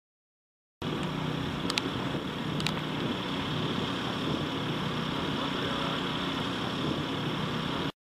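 Steady mechanical hum with a hiss over it, starting and cutting off abruptly, with two faint ticks around two seconds in.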